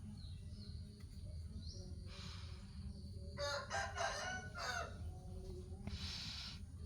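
A rooster crowing once, about three and a half seconds in, with two short hissing noises before and after it.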